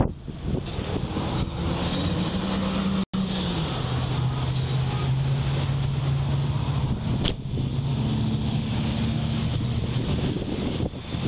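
A vehicle engine running, with wind buffeting the microphone. The engine note drops about three seconds in, just as the sound cuts out for an instant. There is a single sharp click about seven seconds in.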